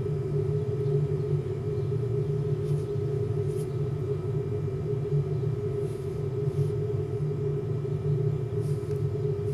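Steady low electronic hum, a sci-fi starship background sound effect, unchanging throughout.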